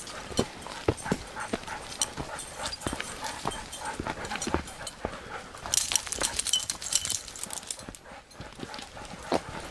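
Footsteps of a walker and three leashed Siberian huskies on a leaf-littered trail: a steady run of soft crunches and clicks, with a brief brighter rustle or rattle about six seconds in.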